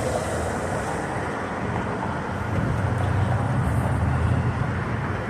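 Road traffic passing, with a low engine rumble that grows louder about halfway through and eases near the end.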